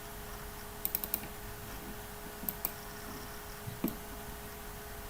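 Computer keyboard keys clicking in short scattered runs: a quick run of four about a second in, two more around two and a half seconds, and one near four seconds, over a faint steady hum.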